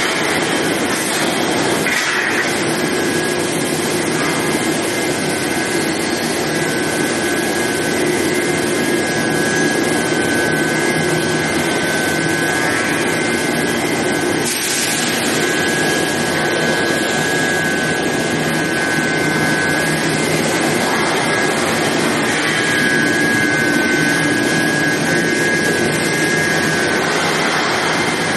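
Induction hardening and tempering line for oil drill pipe running: a loud, steady hiss with a constant high whine over it.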